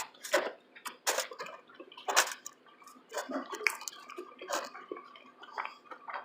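A person chewing and smacking their lips while eating, heard as irregular short wet clicks, about one or two a second.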